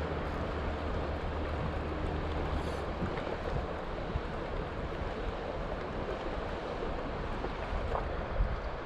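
Sea surf washing steadily over rocks, with wind buffeting the microphone. A low steady hum is under it for the first three seconds.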